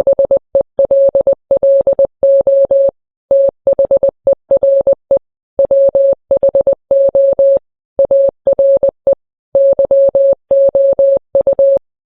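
Morse code beeps: a single mid-pitched tone keyed on and off in short dots and longer dashes, with brief pauses between groups. It stops shortly before the end.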